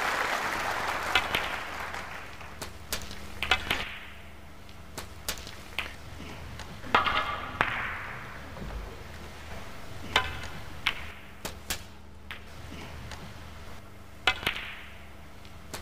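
Snooker balls clicking: sharp single and double knocks at uneven intervals, some with a short ring, about a dozen strikes in all. Applause dies away over the first few seconds.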